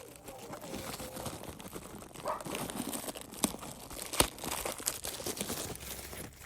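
Packaging being crinkled and torn open by hand, with scattered small clicks and one sharp click about four seconds in.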